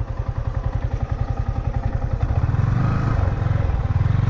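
Yamaha motorcycle engine running at low revs with a fast, even pulse, swelling a little twice in the second half as the throttle opens.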